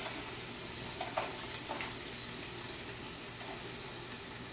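Potatoes sizzling as they go into a hot frying pan to brown, a steady frying hiss with a few short clicks as pieces drop into the pan between one and two seconds in.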